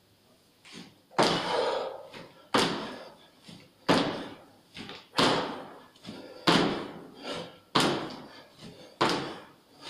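Feet in trainers landing on a hard floor during jump squats: seven thuds at about one every 1.3 seconds, each ringing on in the echo of a stairwell.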